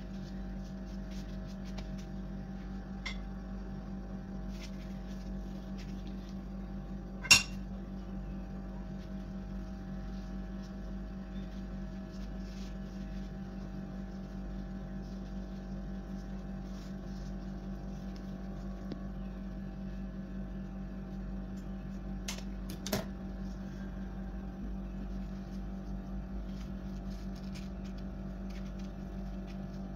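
Faint crinkling and rustling of thin phyllo pastry sheets folded by gloved hands, over a steady low hum. A sharp click about seven seconds in, and two smaller clicks about twenty-two and twenty-three seconds in.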